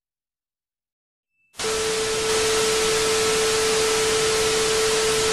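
TV static sound effect: about a second and a half in, a loud hiss of static starts with a steady tone running under it, then cuts off suddenly near the end.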